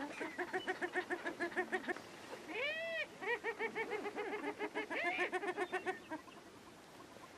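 Prairie-chickens calling on their display ground: quick runs of cackling notes, several a second, with a loud rising-and-falling whooping call about a third of the way in. The calling dies down near the end.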